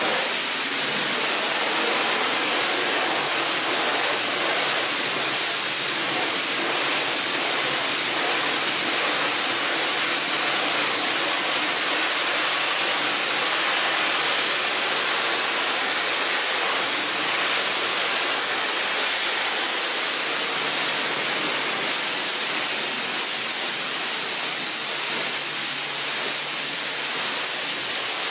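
Water spraying steadily onto a carpet being washed: a continuous, even rush with no breaks.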